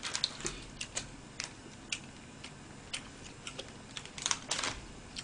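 Plastic wrapper of an individually wrapped cheese slice crinkling as it is handled and peeled, a faint run of irregular light clicks and crackles that come thicker about four seconds in.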